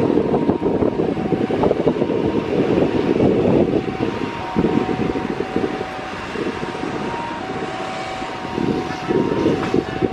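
Jet airliner's engines running on the runway, with gusty wind buffeting the microphone and road traffic passing close by. The rumble surges unevenly and eases a little in the middle.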